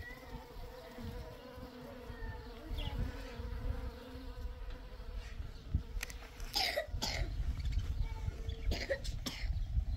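Honeybees buzzing at flowers, a steady hum. In the second half a person coughs a few times.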